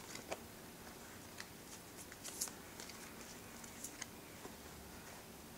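A deck of oracle cards being shuffled by hand: faint, irregular swishes and soft clicks as the cards slide and tap against one another.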